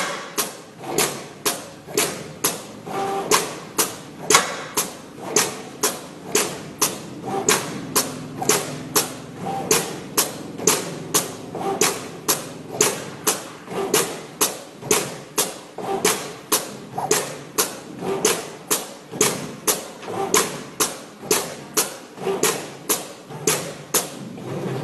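Flatbed cutting plotter working a photo frame's surface with its tool head, giving a steady rhythm of sharp taps, about two to three a second, over a faint machine hum.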